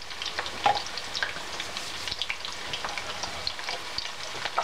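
Sweet potato wedges frying in hot oil in a pan: a steady sizzle with many small pops and crackles.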